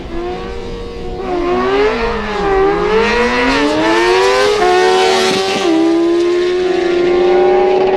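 Racing motorcycle engines revving, their pitch swooping up and down, then accelerating hard with a steady, slowly climbing pitch from about halfway on.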